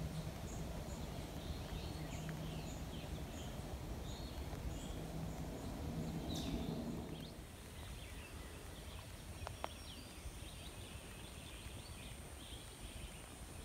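Faint forest ambience: small birds chirping and singing, with short high calls repeating throughout, over a low steady hum that drops away about seven seconds in.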